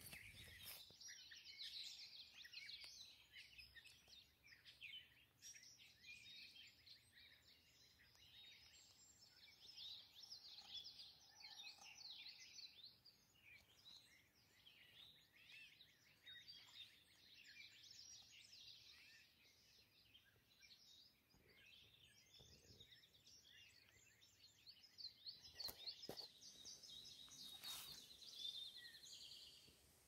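Faint dawn chorus of many songbirds, dense overlapping chirps and trills, with a few knocks near the end.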